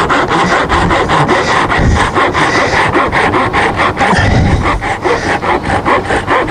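Hand saw cutting with quick, even back-and-forth strokes, about five a second.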